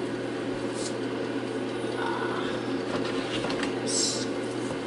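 Steady hum of a running air fryer's fan and heater, with a short hiss about four seconds in.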